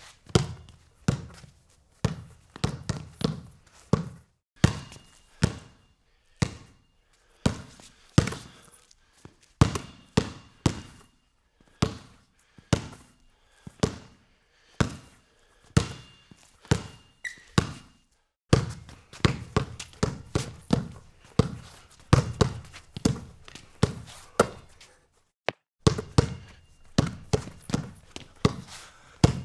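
A ball bouncing repeatedly, each bounce a sharp thud with a short ring, mostly one or two bounces a second and quicker runs in places. It comes in several separate runs with short breaks between them.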